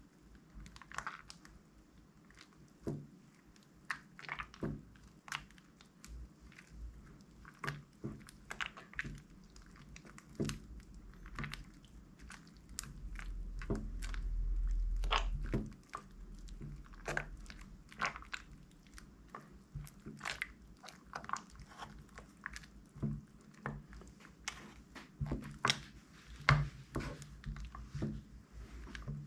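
Slime being stirred and squished with a plastic scoop in a glass dish: irregular sticky clicks and wet pops as the slime is folded and pulled. A low rumble comes in for a couple of seconds midway.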